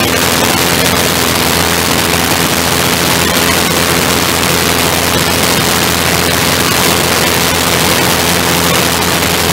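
Engine of a small wing-in-ground-effect craft running steadily at speed, mixed with heavy wind rush over the open cockpit and microphone.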